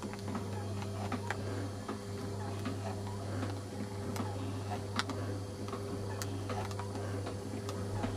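A steady low electrical hum, with scattered light ticks and clicks about once or twice a second at irregular spacing.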